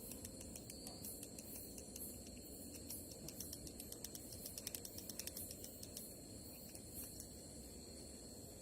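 Night insect chorus: a steady high-pitched cricket trill, with a fast run of ticking pulses that thins out about six seconds in.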